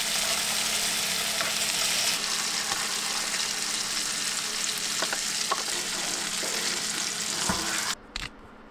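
Ribeye steaks sizzling as they fry in butter in a pan, a steady hiss with a few faint clicks. The sizzle cuts off suddenly near the end, leaving a couple of light clicks.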